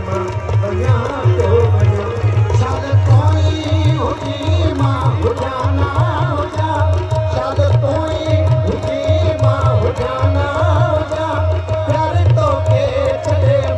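Live Sindhi folk music: steady hand drumming under a wavering melody, with one note held as a drone.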